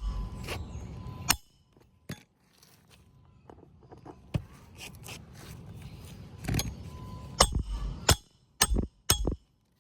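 Metal roofing hand tools clinking and knocking on asphalt shingles, in a scatter of sharp strikes. Most of the strikes come close together in the second half.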